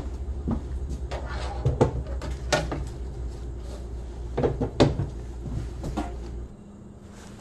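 A series of sharp knocks and bumps, a handful spread unevenly, over a steady low hum that stops about six and a half seconds in.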